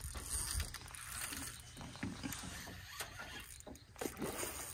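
Fishing reel giving faint irregular clicks as a hooked fish is played on a bent rod, over a low rumble.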